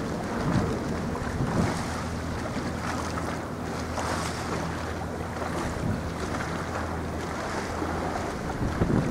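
Wind gusting on the microphone over the wash of sea waves, with a steady low drone from the passing bulk carrier's engine.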